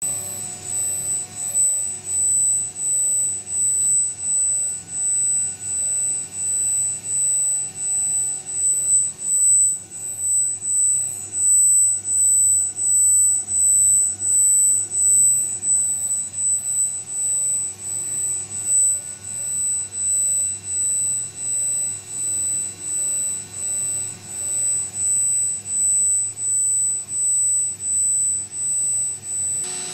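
Rexroth servo motor running on a test bench under drive power: a steady electric whine of several fixed tones, some high-pitched, that swells and dips regularly about one and a half times a second. It is a test run of the motor after repair.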